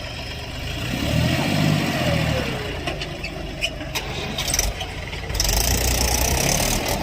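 Heavy diesel engine running, swelling louder about a second in, with a few sharp clicks near the middle.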